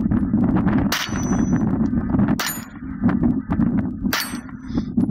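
Three 9mm pistol shots, about a second and a half apart, each followed at once by the ringing clang of a steel spinner target being hit.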